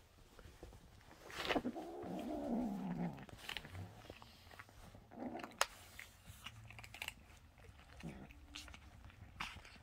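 Kittens eating crunchy treats, with sharp clicks of chewing and a kitten grumbling low over its food for about two seconds, then in shorter bursts later. It is the grumbling of a cat guarding its treat while it eats.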